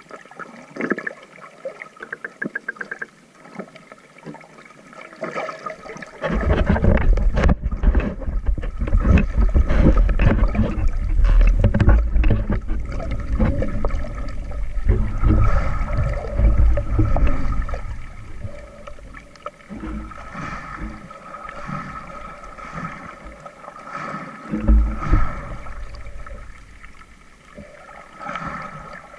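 Seawater splashing and gurgling close to the microphone, with a heavy low rumble that sets in about six seconds in and eases off after about eighteen seconds.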